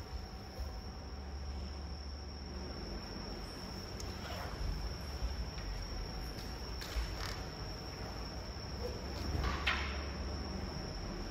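Quiet practice hall: a steady high-pitched tone over a low hum, with a few faint knocks.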